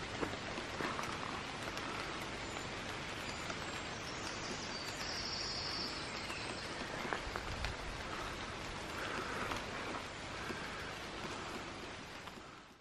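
Steady rain falling through woodland leaves, with a few faint bird chirps. The sound fades out near the end.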